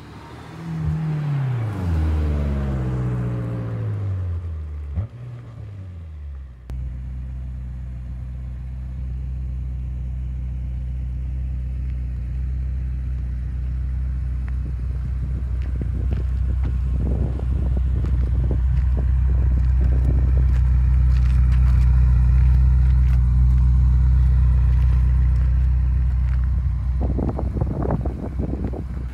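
2016 BMW M6 Gran Coupe's twin-turbo V8 exhaust. Over the first six seconds the car drives by with its engine pitch falling. Then the parked car idles steadily, the idle slowly growing louder.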